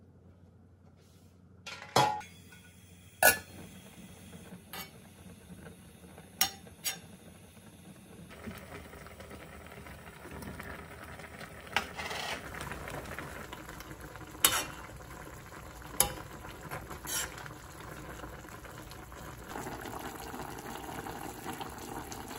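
Metal tongs and a metal container clinking sharply against a stainless steel pot as marinated short ribs go in. From about a third of the way in, the ribs bubble in their sauce at a lively simmer, with a few more clinks of utensils on the pot.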